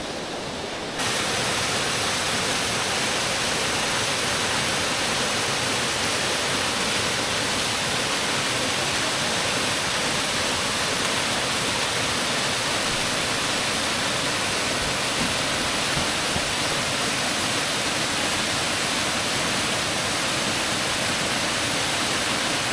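Buttermilk Falls, a waterfall: a steady rush of falling water that gets louder and fuller about a second in, then holds even.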